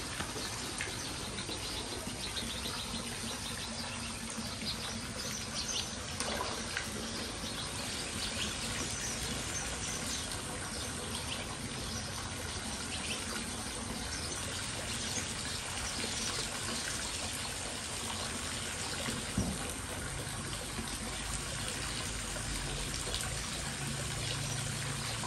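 Water pouring steadily into a koi pond from a fountain spout and inlet pipes, a continuous trickling splash with small scattered splashes.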